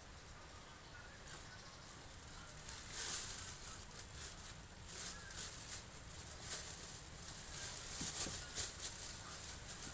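Thin plastic crinkling and rustling in irregular bursts as it is handled and wrapped around electrical parts, getting louder about three seconds in.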